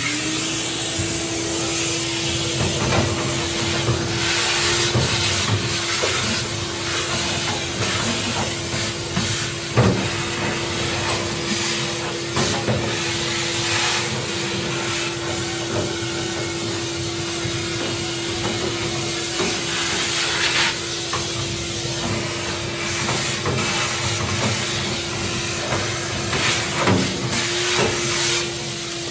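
Vacuum cleaner switched on and running steadily with a constant motor whine, sucking loose dirt out of a wooden library box, with scattered knocks and rattles as the nozzle is worked around inside.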